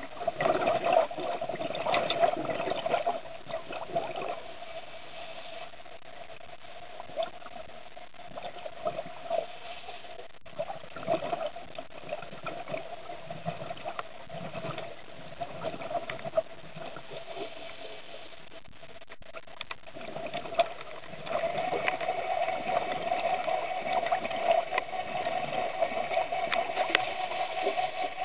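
Underwater sound picked up by a camera in its housing: crackling, bubbling water noise over a steady hum, louder again from about three-quarters of the way in.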